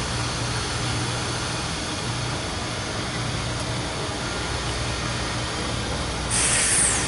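High-rail truck's engine running with a steady low hum as the truck moves slowly along the track. A loud, short hiss with a falling high edge comes near the end.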